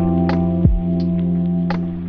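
Background music: held electronic chords with a deep falling bass hit about two-thirds of a second in, and light high ticks at a steady pace.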